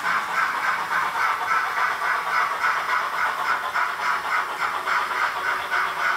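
Digital sound decoder of a Roco HO-scale model steam locomotive playing steady steam exhaust chuffs, about four a second, through the model's small loudspeaker, with little bass.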